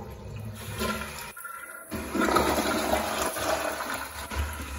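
Crane Plumbing SureFlush toilet flushing: water rushes through the bowl, loudest from about two seconds in, with a low thud near the end.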